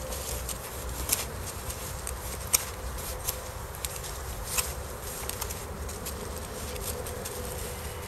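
Ka-Bar USN Mark 1 knife blade working a wooden stick to a point: a scattering of short, sharp scrapes and clicks, over a faint steady hum.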